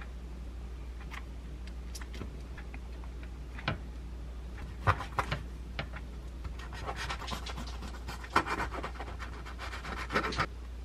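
A knife sawing through a bagel's crust on a wooden cutting board: short scratchy strokes packed together from a little past the middle until near the end, after a few light handling clicks. A steady low hum runs underneath.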